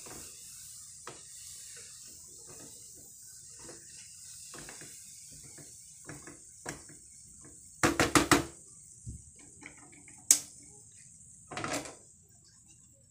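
Silicone spatula scraping and knocking against a nonstick frying pan as a thick cooking mixture is stirred, over a steady high hiss. Soft strokes come throughout, with a quick run of four sharp knocks about eight seconds in and single louder knocks after that.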